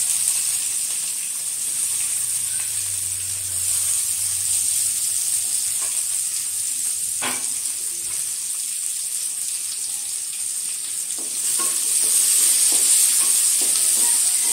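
Chopped onions sizzling steadily in hot oil in a metal kadai, with a single click about seven seconds in. From about eleven seconds in, a wooden spatula stirs them: the sizzle grows louder, with short scraping strokes against the pan.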